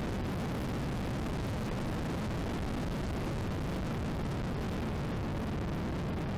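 Ariel Atom 3 Supercharged being driven at speed, heard as a steady, heavy wind rumble over the microphone with no engine note standing out above it.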